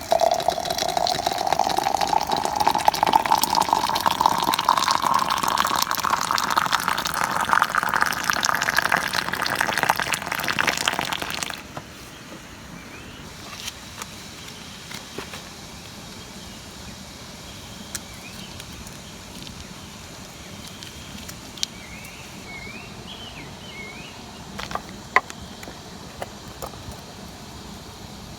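Water being poured into a container, its pitch rising steadily as the container fills, then stopping abruptly about twelve seconds in. After that, a quieter steady background with a few small clicks and faint chirps.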